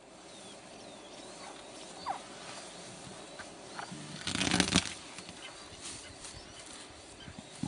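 Open-air ambience: a steady hiss with faint bird chirps, and a loud rustling, crunching noise lasting about half a second, midway through.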